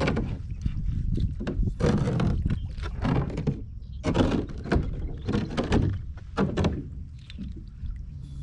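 Irregular knocks and thunks with rustling, scraping noise from gear being handled on a kayak, over a steady low rumble of wind on the microphone.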